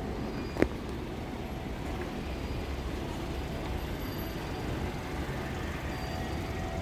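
Busy city street background: a steady low traffic rumble, with one sharp knock about half a second in.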